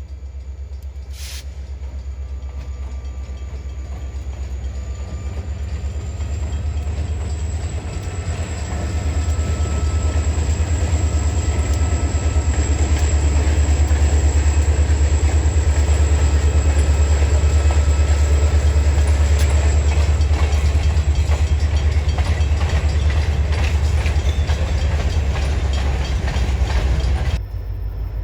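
Diesel freight train locomotives approaching and passing: a low engine rumble that grows louder over roughly the first ten seconds, holds, and then drops suddenly near the end.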